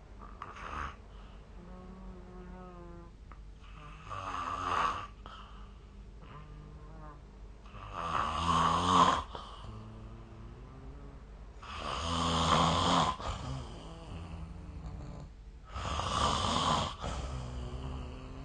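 A sleeping person snoring: four rough snores on the in-breaths, about four seconds apart and each lasting a second or so. Faint wavering whistle-like tones come in the quieter breaths between them.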